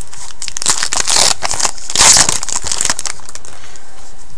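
The foil wrapper of a hockey card pack crinkling as it is torn open, in two rustling spells, the louder one about two seconds in.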